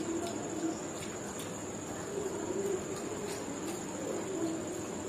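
Eating sounds from two people biting and chewing yogurt-filled raj kachori: soft scattered crunches and clicks. Under them, a low wavering cooing sound comes and goes several times, and a steady high-pitched whine runs throughout.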